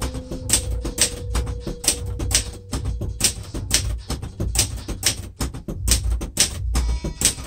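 Adler J5 manual typewriter being typed on steadily, each keystroke a sharp typebar clack against the platen, about three a second and unevenly spaced.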